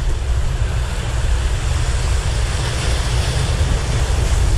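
Sea waves surging and washing over the rocks of a breakwater, under a heavy, steady rumble of wind buffeting the microphone.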